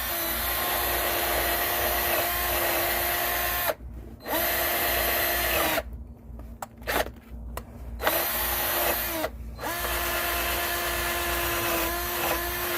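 Power drill spinning a wire wheel brush to scrub dirt off a brake caliper bracket where the pads sit. It runs at a steady speed in four spells: it stops briefly about 4 s in, pauses for a couple of seconds with a few clicks after about 6 s, and stops briefly again near 9 s.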